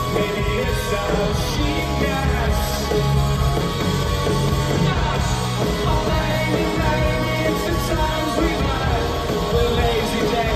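Rock band playing live with a singer, heard from among the audience in a large hall.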